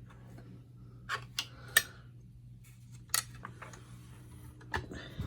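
A screwdriver prying at the plastic retaining tabs of a Kirby G4 vacuum's cord fitting, giving about six sharp, irregular clicks and taps. The loudest click comes a little under two seconds in.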